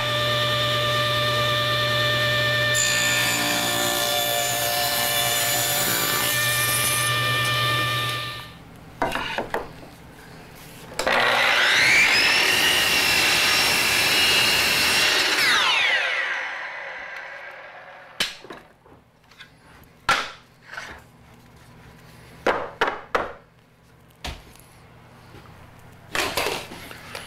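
A table saw runs steadily and rips a board, with the cutting noise from about 3 to 7 seconds in, then stops. A Milwaukee miter saw then spins up with a rising whine, crosscuts a board, and winds down. Near the end come scattered knocks of cut wood pieces being handled.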